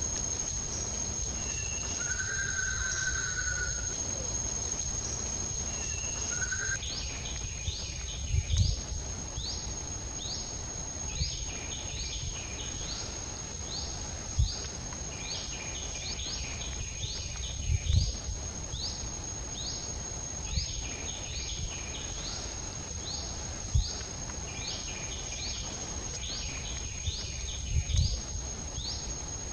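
Outdoor ambience: a steady high-pitched insect drone, with a bird calling in short rising chirps about once a second from about seven seconds in. A few brief low thumps come through.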